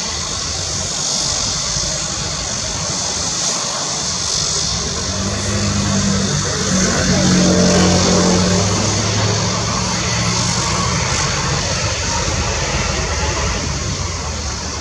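Mirage 2000-5 fighter's single SNECMA M53-P2 turbofan running at low power as the jet taxis past: a steady high hiss with a low hum that swells about five seconds in, is loudest around eight seconds, then eases a little.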